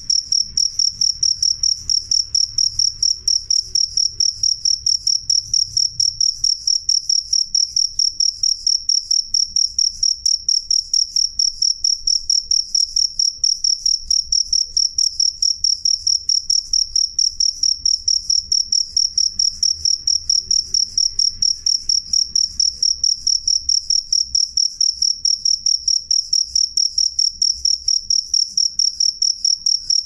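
Male field cricket chirping with its forewings raised, a loud, clear, high-pitched chirp repeated evenly several times a second without a break. This is its stridulation calling song.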